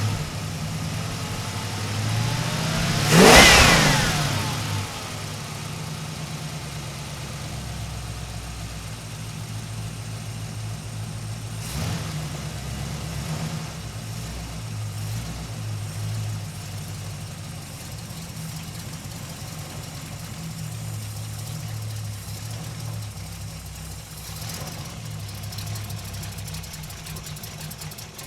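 Muscle car engine blipped once into a sharp rev about three seconds in, then settling into a long, steady, lumpy idle.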